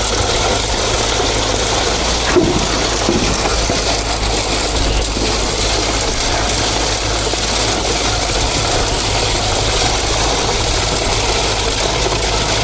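A machine engine running steadily, with a single sharp knock about two and a half seconds in.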